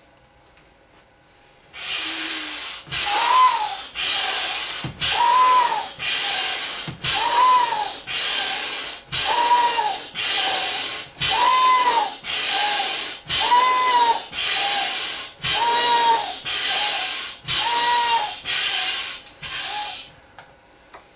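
Hand air pump worked in steady strokes, about one a second, each stroke a loud rush of air going into a large vinyl inflatable flamingo; a short rising-and-falling whistle sounds on about every other stroke. The pumping starts about two seconds in and stops just before the end.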